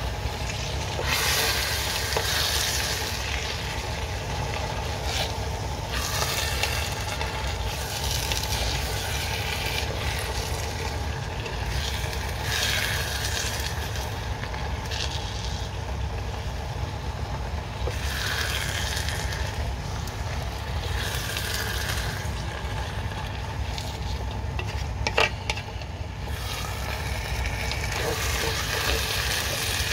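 Wooden spatula stirring and folding cooked rice into chicken biryani masala in a steel pot, in repeated scraping, rustling strokes over a steady low hum. There is one sharp knock against the pot about 25 seconds in.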